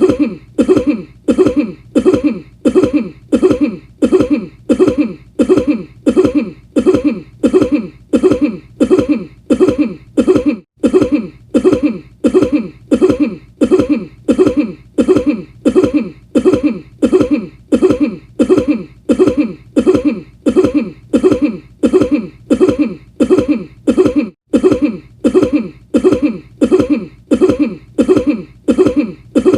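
One person's cough played over and over in a tight loop, about two identical coughs a second. Two brief gaps, about a third of the way in and again near the end, are where the loop restarts.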